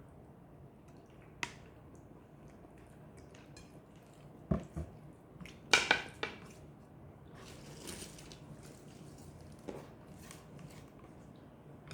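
Kitchen utensils knocking and clinking against dishes: a few scattered knocks, then a quick run of sharp clinks with a short ring about five to six seconds in, the loudest moment, and a soft hiss a little later.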